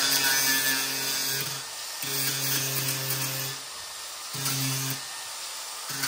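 A small handheld power tool running at the bench: a steady hiss, with a motor whine that drops out and comes back several times as the tool is worked.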